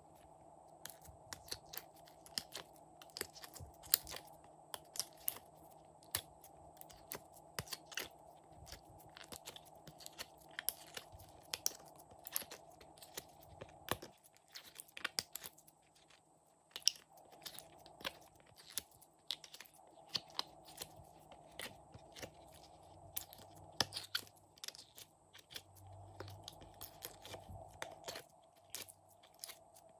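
Sticky glossy slime being peeled out of a silicone mould and squeezed between the fingers, making many small irregular crackling clicks and pops.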